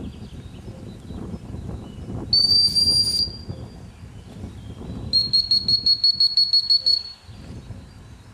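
Gundog whistle blown by a retriever handler: one long blast, the stop signal, then after about two seconds a string of about a dozen short rapid pips, the recall.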